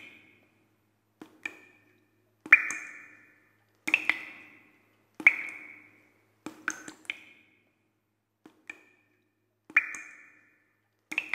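Water drops falling one at a time onto a hard, resonant surface, each landing as a sharp click with a short ringing ping at the same pitch. They come irregularly, about every second and a half, some in quick pairs.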